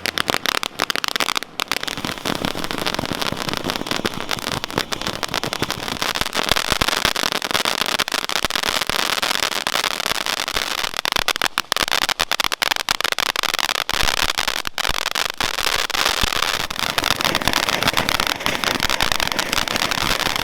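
Consumer firework fountains spraying with dense, continuous crackling and hiss, the crackle growing thicker after about six seconds.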